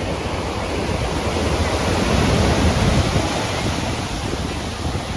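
Ocean surf washing in, swelling to a peak about two to three seconds in and then easing, with wind buffeting the microphone.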